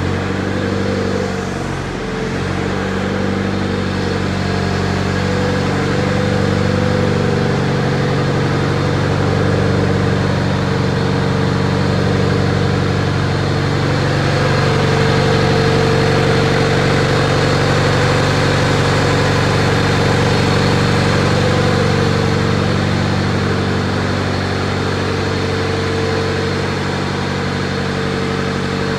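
Engine of a wheeled underground mining drill jumbo running steadily at idle, with a constant low hum and a higher tone that swells and fades at times.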